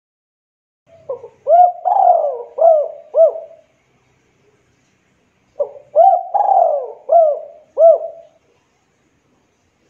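Spotted dove (derkuku) cooing: two phrases of four or five rolling coos each, a few seconds apart.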